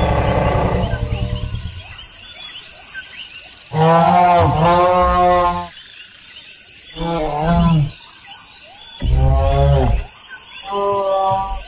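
Dinosaur roar sound effects for two Centrosaurus fighting. A low, rough roar fades out in the first two seconds, then four pitched roaring calls follow. The first, starting a little under four seconds in, is the longest and loudest.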